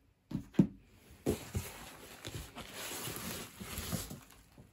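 Cardboard shipping box being handled and packing material rustling as an item is lifted out. A few sharp knocks come in the first second or so, then a steady crinkling rustle.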